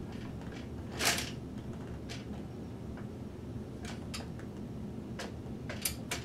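Clicks and knocks of a telescope's equatorial mount being handled and fitted onto the tripod head, with one louder knock about a second in and a few lighter clicks after it, two of them close together near the end, over a steady low hum.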